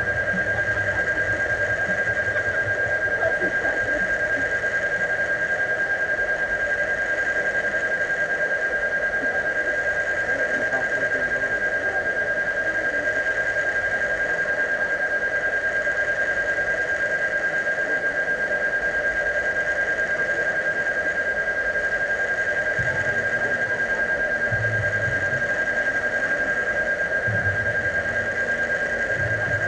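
A steady high-pitched tone held without a break over a constant droning hum, with a few low thumps in the last several seconds.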